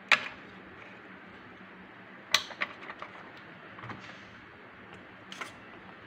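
A few sharp clicks and knocks from hands handling the parts of a homemade model combine harvester, the loudest a little over two seconds in, over a faint steady hiss.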